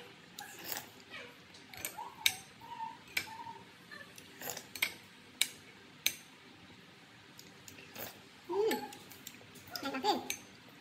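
Metal spoon clinking against a ceramic bowl in scattered single taps as it stirs and scoops through sweet potato pieces in a liquid dessert. Two short gliding voice-like sounds come near the end.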